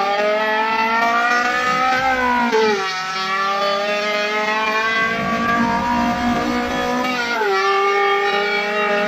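A person's voice imitating a Honda Civic EG6 engine accelerating through the gears: a buzzing tone that climbs steadily in pitch, drops sharply like an upshift about two and a half seconds in and again about seven and a half seconds in, then climbs again.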